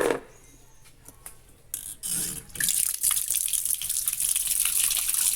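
Water running steadily, used to wash out a dirty washing machine. It starts about two seconds in and grows stronger about a second later.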